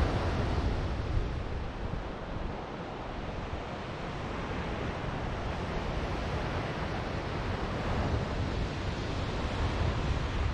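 Ocean surf washing on a beach, a steady wash that eases for a few seconds and then slowly builds again, with wind rumbling on the microphone.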